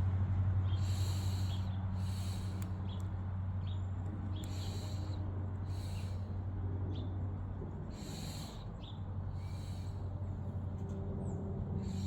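Light clicks from a Lishi pick tool being worked in a car door lock, with a person breathing about once a second and a steady low hum underneath.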